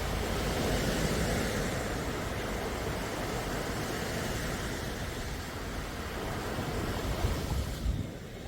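Sea waves washing onto the shore: a steady rushing surf over a low rumble that eases off near the end.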